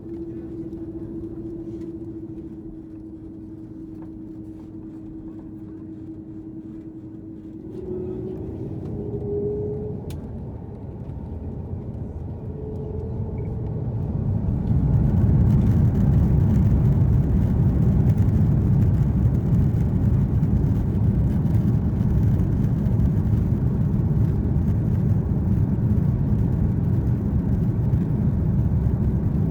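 Airbus A330-300 jet engines heard from inside the cabin: a steady low hum with a faint whine while taxiing, with a brief rise in pitch about eight seconds in. At about fourteen seconds the engines spool up to takeoff thrust, and a loud, steady low noise of the takeoff roll takes over.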